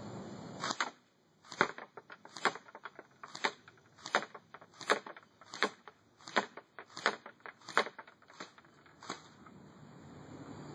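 Double Eagle Hybrid Spetsnaz AK47 airsoft gun firing single shots at a target, about a dozen sharp cracks spaced under a second apart, with fainter ticks between them.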